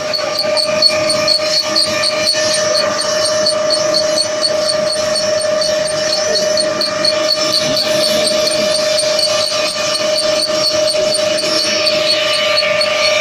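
Bamboo toothpick-making machine running: a steady motor whine with a fast, regular ticking over it.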